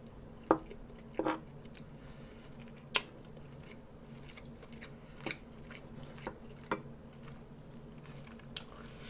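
Someone eating: quiet chewing with a scattering of short sharp clicks, about seven in all, over a faint steady low hum.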